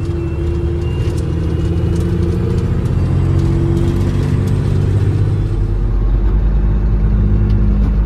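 Semi truck's diesel engine and road noise heard from inside the cab while driving on a gravel road. The engine note changes about two-thirds of the way through.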